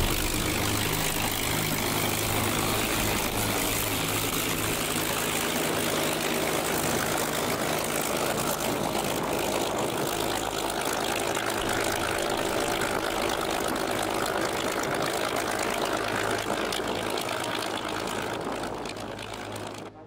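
Curtiss P-40 Warhawk's liquid-cooled V-12 engine and propeller running steadily at low throttle as the fighter taxis, fading slightly near the end as it rolls away.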